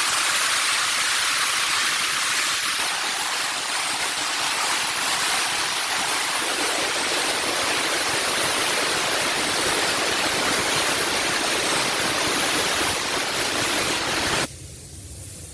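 Steam car-wash wand spraying steam onto a car's paint and glass: a steady, loud hiss that drops off sharply about a second before the end.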